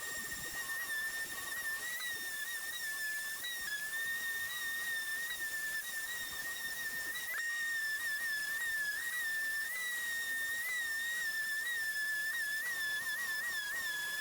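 Electric sander running on wood, its motor giving a steady high-pitched whine that wavers and dips briefly in pitch now and then as the load changes.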